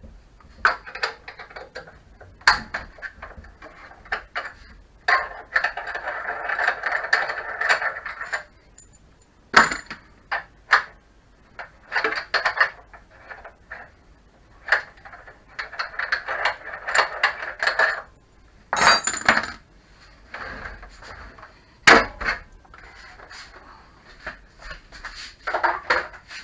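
Allen key working the leg bolts out of a Tacx Flux trainer. Metal clinks and sharp knocks, with two spells of rapid clicking a few seconds long as the bolts are turned.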